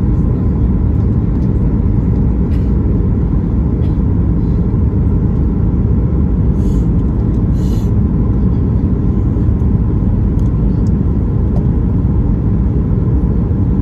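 Steady cabin noise inside a jet airliner on its descent: a continuous rumble of engines and rushing air, heaviest in the low range and even in level throughout.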